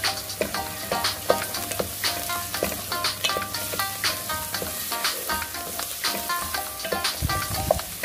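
Chopped onion and garlic sizzling in hot oil in a pot as they are stirred with a wooden spatula. Background music with a light melody plays over it.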